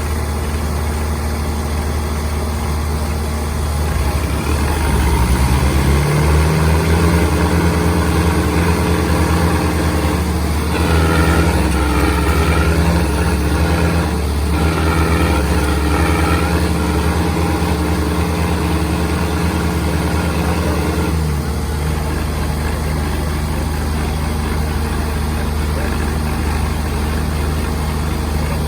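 Tractor diesel engines working hard in a tug-of-war: about four seconds in the revs climb and hold high under load, then fall back to a steady idle after about twenty seconds.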